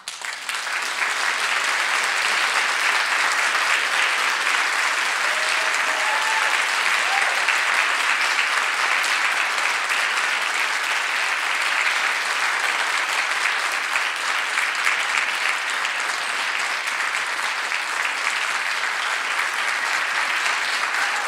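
Audience applause at a concert, swelling within the first second after the music ends and then holding steady.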